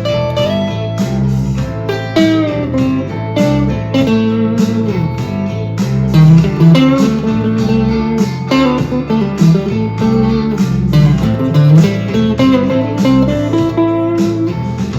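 Harley Benton TE-62CC SFG Telecaster-style electric guitar playing a blues lead with string bends over a backing track with a steady drum beat.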